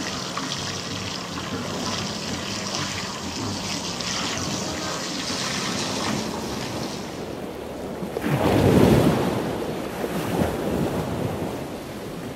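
Fresh water running and splashing steadily from a hose, the hiss falling away about seven seconds in; then a loud rushing burst about eight seconds in and a shorter one about two seconds later, like wind gusting on the microphone.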